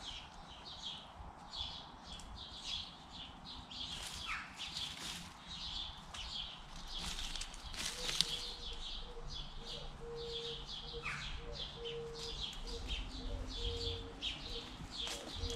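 Wild songbirds chirping and singing in quick, high, overlapping calls. A low, broken hum joins about halfway through.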